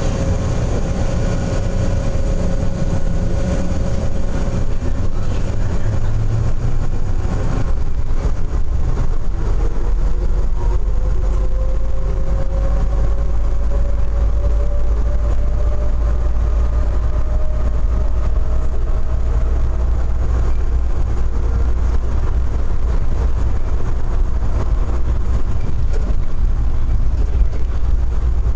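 Denver airport's rubber-tyred automated people-mover train running through its tunnel, heard from inside the car: a steady low rumble that grows heavier about eight seconds in. A faint motor whine slowly rises in pitch through the middle.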